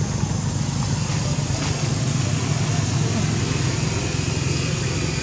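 Steady low engine hum of a motor vehicle running, with a constant wash of outdoor noise.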